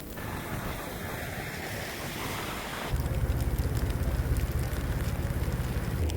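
Blizzard wind hissing, then from about three seconds in a louder low rumble of wind buffeting the microphone.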